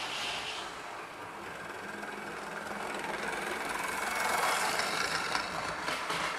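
Electric model train running past on its track, its motor whirring and its wheels clunking on the rails, growing louder as it comes close and fading as it goes by, with a few sharp clunks near the end. The owner puts the clunking down to the wheels spinning fast and sliding on old, oily, dirty track.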